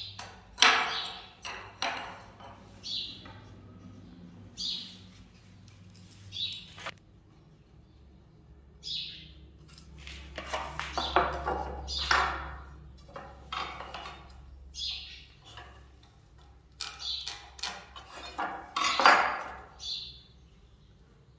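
Wooden molding strips being handled and fitted against a door frame: scrapes and light knocks of wood on wood, loudest about a second in, midway and near the end. Short high chirps, like a bird calling, come at intervals.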